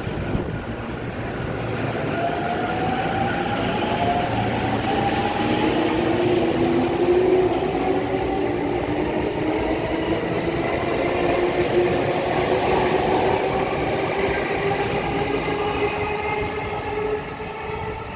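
JR East E231-0 series electric train pulling out and accelerating past: the VVVF inverter and traction motors whine in several tones rising slowly in pitch over steady wheel-on-rail rumble. The sound drops away about a second before the end as the last car clears.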